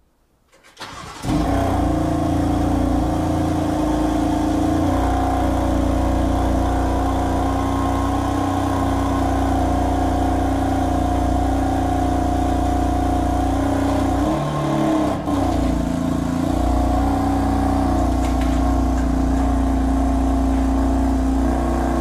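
BMW M4's twin-turbo inline-six engine starting up about a second in and then idling steadily, with a brief wobble in its note about two-thirds of the way through.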